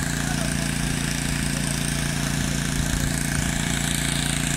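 Portable wheeled air compressor running steadily with an even, pulsing hum while it pumps air into a truck tyre.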